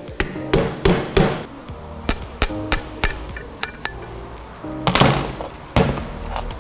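Hammer blows on a steel drift driving a bearing cup (outer race) out of the cast-iron pinion housing of a Toyota HDJ80 front differential. About a dozen sharp metallic strikes come in quick runs over the first four seconds, then two louder, duller knocks near the end.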